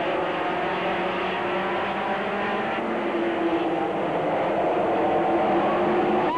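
Late model stock cars' V8 engines running at speed on an oval track, several engines overlapping in a steady drone.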